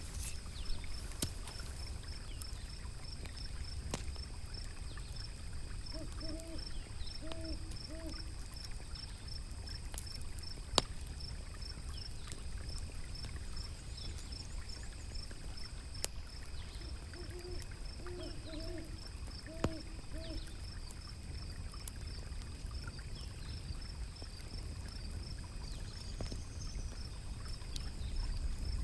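An owl hooting in two short series of hoots, about 6 and 18 seconds in, over the crackle of a wood fire with scattered sharp pops, the loudest near the middle. Underneath runs a low steady rumble and a steady high chirping.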